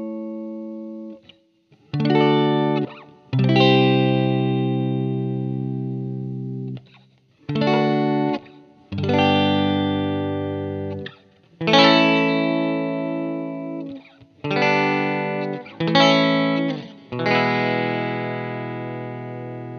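Background music: slow guitar chords, about eight of them, each struck and left to ring out and fade before the next.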